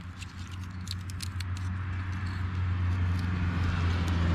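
Dry stone pine cone scales crackling and snapping as they are pried apart by hand, mostly in the first second or so. Under this runs a steady low engine hum that grows louder toward the end, a vehicle drawing closer.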